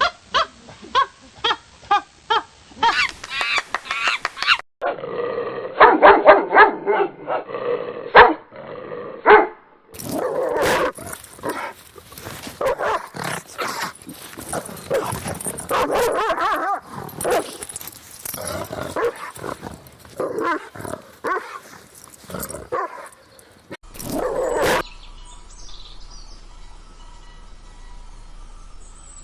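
Dogs barking and yelping in a run of separate recordings spliced one after another, each with a different sound quality. The barking stops about 25 seconds in and is followed by a faint steady background.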